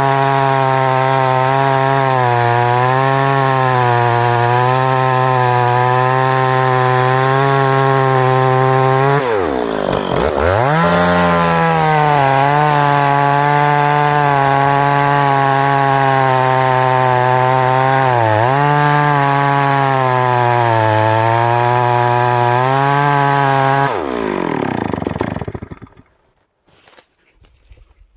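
Stihl 026 two-stroke chainsaw running at full throttle as it cuts through old dead cottonwood, its pitch wavering under load. The revs dip sharply and recover about ten seconds in, and dip briefly again later. Near the end the throttle is let off and the engine winds down and stops.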